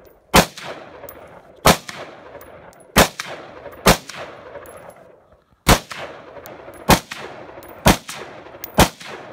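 AR-15 rifle firing eight single shots in slow, aimed succession, about one a second with a longer pause in the middle, each followed by a trailing echo.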